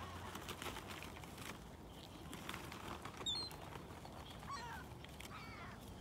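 Gulls calling over a lake, a few short cries with the sharpest about three seconds in and two more runs of calls near the end, against a faint outdoor background.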